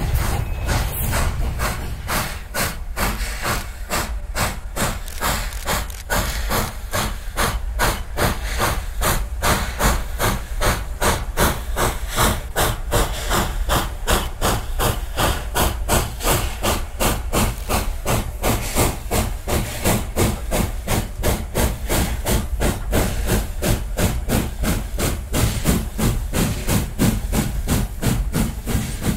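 Nevada Northern 81, a 2-8-0 steam locomotive, working under steam, its exhaust chuffing in an even rhythm of about four beats a second with a steady hiss of steam.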